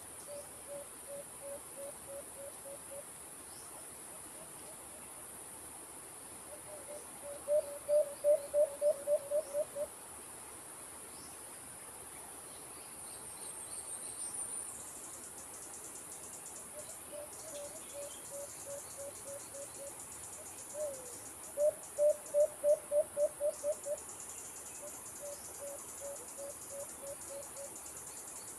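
Doves (alimukon) calling in quick runs of low, evenly spaced coos, about four a second. Two runs are loud and close, about seven and twenty-one seconds in, and several fainter runs come between them, over a steady high insect drone.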